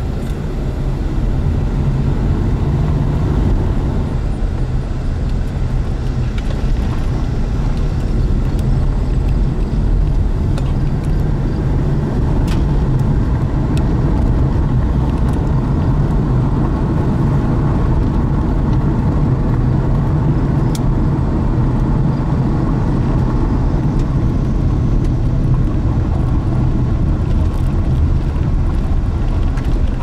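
A car driving at road speed: a steady rumble of engine and tyre noise.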